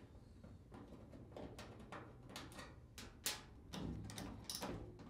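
Faint, irregular clicks and small metal ticks of a Phillips screwdriver backing screws out of a dryer's lint chute opening, with one sharper click a little past the middle.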